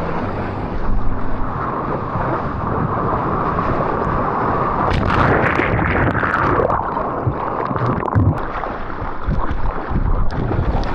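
Surf and rushing water with wind buffeting the microphone, a deep rumble underneath. A louder wash of water rises about five seconds in and fades a second or so later.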